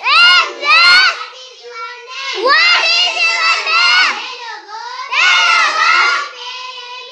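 A class of young schoolchildren reciting Nepali phrases aloud together in unison, in loud chanted bursts with short quieter gaps between them.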